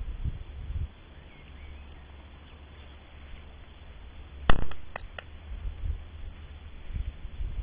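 Low rumbling thumps at the start and near the end, and a sharp click followed by three lighter clicks just past the middle.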